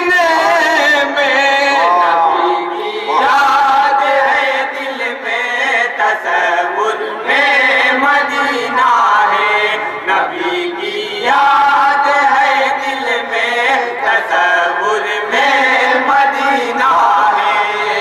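A chorus of men singing Urdu devotional verse together in unison, without instruments, into a microphone. The singing comes in long phrases of a few seconds each, with brief breaks between them.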